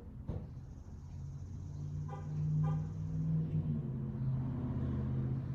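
A car going by outside, a low engine and road rumble that swells up about a second and a half in.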